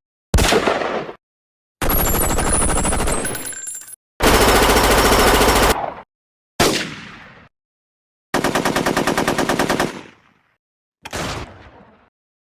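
A string of separate sound effects cut one after another with dead silence between them: sharp single bangs that die away, and several bursts of rapid machine-gun fire lasting one to two seconds each, the last with about nine shots a second.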